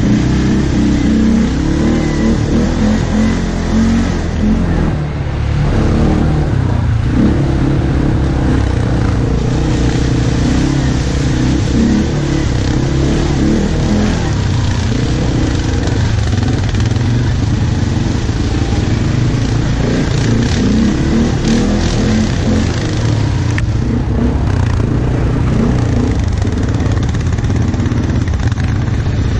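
ATV (quad bike) engine running while riding, heard from the rider's seat, its pitch rising and falling with the throttle.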